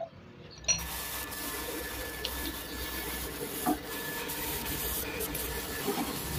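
Drill press boring a hole through a steel plate: the bit cutting steel under a steady machine hum with a thin, steady high whine. It starts suddenly a little under a second in.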